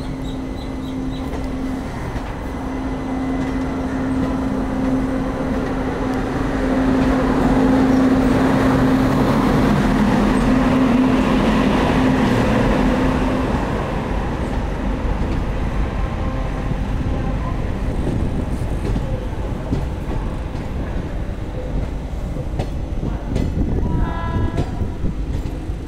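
Freight train of covered wagons and its electric locomotive rolling past at close range, wheels rumbling and clacking on the rails. A steady hum grows louder and passes about twelve seconds in. Near the end a brief higher-pitched tone is heard.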